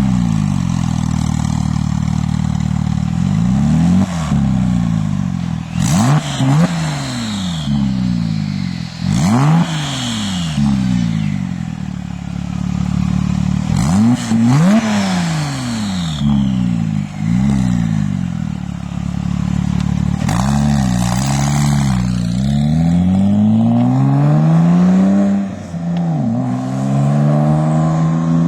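Porsche 997 Turbo's twin-turbo flat-six, with sport catalytic converters and muffler bypass pipes, running just after a cold start. It is revved again and again, the pitch climbing quickly and falling back about every two to four seconds, and settles to a lower idle near the end.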